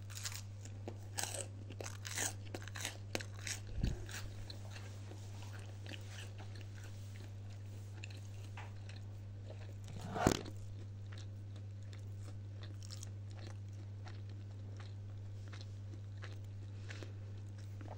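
Close-up mouth sounds of someone chewing toast with ham, cheese and salad: a run of crisp crunches over the first four seconds or so, then quieter chewing, with one louder mouth sound about ten seconds in. A steady low hum runs underneath.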